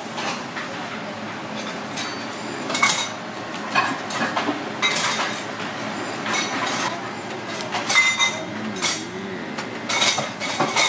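A spatula scraping and tapping as butter is spread over split lobster halves on aluminium foil: irregular short scrapes and clinks about once a second over a steady background hum.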